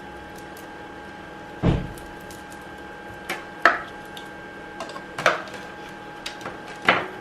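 Handling sounds from assembling a plastic microneedling pen: a low thump about two seconds in, then several sharp plastic clicks and taps spaced a second or two apart.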